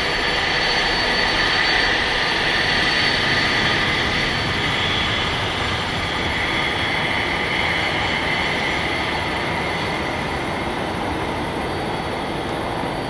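Airbus A319 twin jet engines at takeoff thrust as the airliner climbs away: a steady rushing roar with a high whine in it, slowly growing fainter in the second half.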